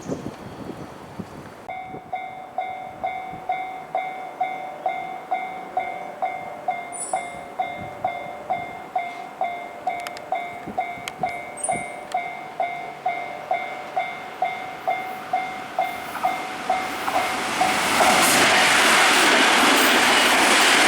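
Japanese railway level-crossing warning bell starting about two seconds in, dinging about twice a second. Near the end a Nankai Main Line train arrives at the crossing, its passing noise loud and steady with wheels clattering over the rail joints.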